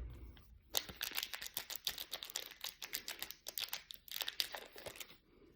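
Trading card pack wrapper crinkling and tearing as it is opened, a quick run of crackles that stops about five seconds in.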